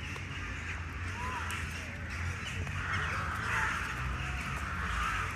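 Crows cawing repeatedly in harsh bursts, over a steady low rumble.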